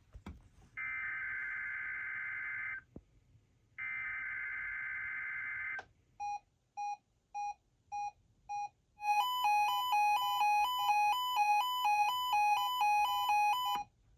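NOAA Weather Radio SAME alert header: two harsh digital data bursts of about two seconds each. These are followed by a receiver's alert, five short beeps and then about five seconds of rapid beeping that alternates between two pitches, for the Required Weekly Test.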